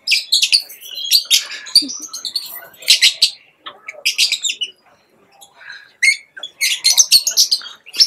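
A flock of Fischer's lovebirds chattering in quick runs of high-pitched chirps, with a short lull about halfway through.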